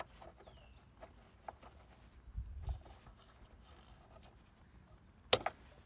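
Small plastic ticks and rubbing as fingers twist the licence-plate lamp's bulb holder out and pull the glass W5W wedge bulb from its socket, with a couple of dull bumps halfway through and one sharp click near the end.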